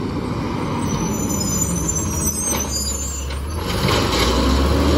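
Natural-gas automated side-loader garbage truck driving up and stopping. Its engine runs with a steady low rumble that grows louder about three and a half seconds in as the truck pulls alongside. A thin high squeal, typical of brakes, sounds while it slows.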